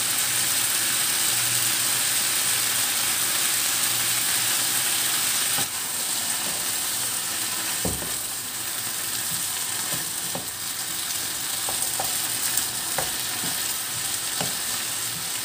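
String beans and ground pork sizzling in a nonstick wok as soy sauce is poured in. A little louder in the first half; from about eight seconds in a wooden spatula stirs them, with scattered light knocks against the pan.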